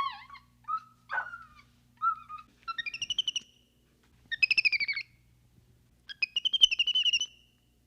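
High-pitched animal calls: a few short chirps, then three rapid trills of about a second each.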